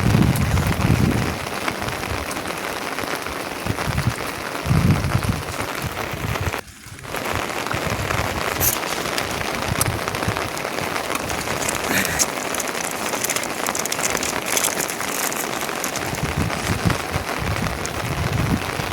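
Steady rain falling, with scattered patters of drops and a brief drop-out about seven seconds in.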